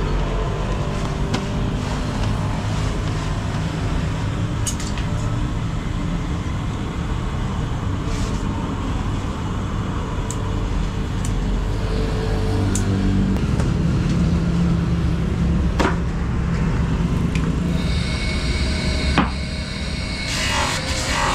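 Steady low workshop rumble with scattered sharp clicks as rubber inner tube is handled and cut. Near the end a higher rasp as the rubber is pressed against a small motor-driven buffing wheel to rough it up for patching.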